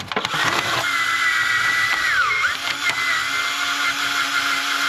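Small electric drill running steadily at speed, its motor whine dipping briefly in pitch about halfway through.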